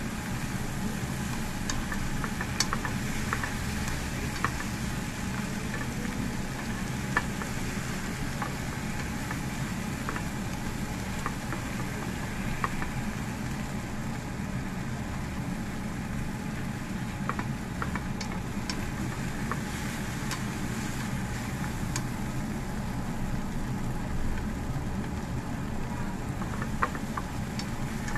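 Tomatoes and scrambled egg sizzling in a nonstick frying pan while being stirred, with scattered clicks of chopsticks against the pan over a steady low hum.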